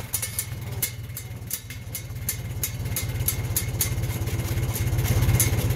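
1941 Farmall M's four-cylinder engine running steadily at idle while the tractor rolls in fourth gear, low range, with a light regular ticking about three times a second over the engine note.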